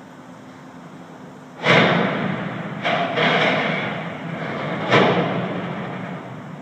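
Stadium grandstand structure crashing during demolition. A sudden loud crash comes a little under two seconds in, then further crashes around three and five seconds in, each trailing off slowly.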